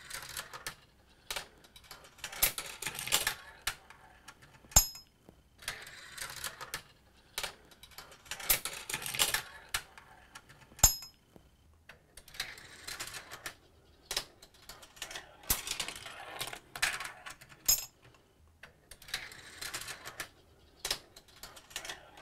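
Steel marbles rolling and clattering through a plastic marble run in repeated runs of rattling clicks. Three times, spaced several seconds apart, a marble lands in the die-cast metal tipper of a 1976 Matchbox Lesney Site Dumper with a bright, ringing metallic ting.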